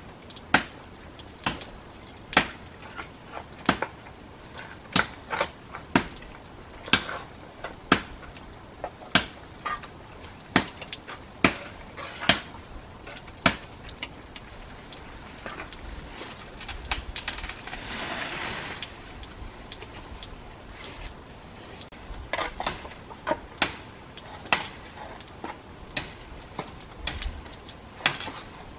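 Repeated blows of a hand tool striking wood, about one to two a second, pausing a little past halfway for a short burst of noise before the strikes resume. A steady high-pitched note runs underneath.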